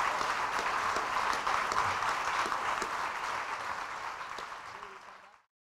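A large audience applauding: many hands clapping in a dense, steady patter that fades away over the last second or so.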